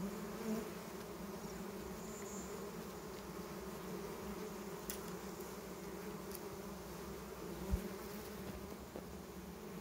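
Steady buzzing hum of a colony of small wild honeybees clustered on their open comb, with one brief low thump about three quarters of the way through.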